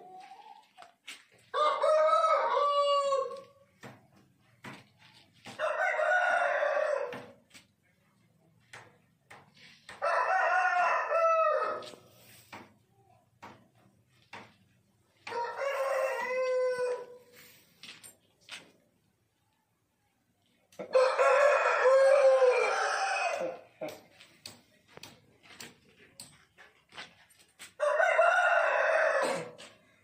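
Aseel roosters crowing: six crows, each about two seconds long, a few seconds apart.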